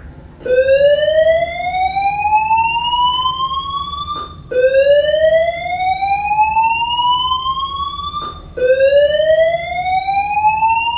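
Voice-evacuation fire alarm system sounding its slow-whoop tone. Three loud electronic sweeps, each rising steadily in pitch for about four seconds, with a brief break before each new sweep starts low again.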